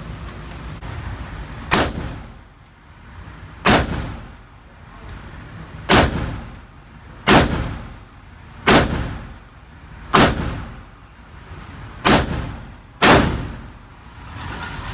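Eight gunshots fired one at a time, irregularly spaced about one to two seconds apart, each followed by a short echoing tail.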